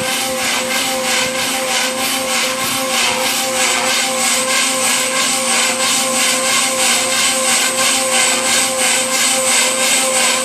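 JR Forza 450 radio-controlled helicopter flying and pirouetting: a steady high whine from its motor and rotor head, with a fast, even swishing pulse from the rotor blades.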